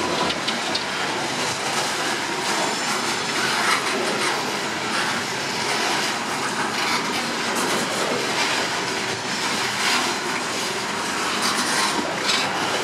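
Norfolk Southern coal train's steel hopper cars rolling past close by: a steady rumble and clatter of wheels on the rails.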